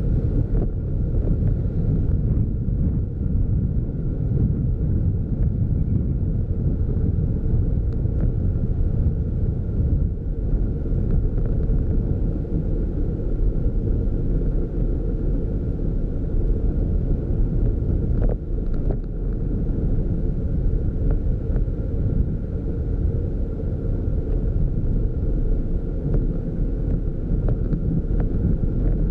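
Steady low road-and-engine rumble of a moving vehicle, with wind buffeting the camera microphone and a faint steady whine above it.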